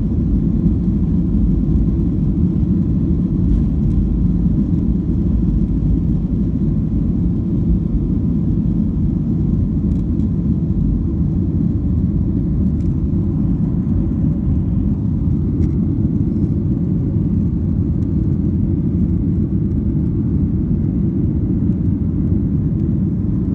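An airliner's jet engines at takeoff thrust, heard from inside the cabin through the takeoff roll and climb-out: a steady, deep rumble.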